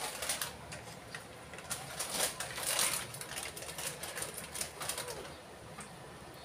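Plastic snack packets and small goods rustling and clicking as they are handled and set on store shelves, in a quick irregular patter, with a faint short call about five seconds in.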